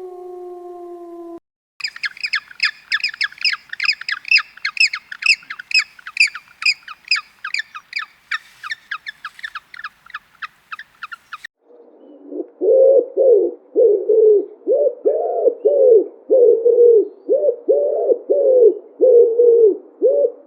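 A dog's falling howl cuts off about a second in. Then a bird chirps rapidly, about three high chirps a second, for roughly ten seconds. Near the midpoint it gives way to a lower call repeated about twice a second.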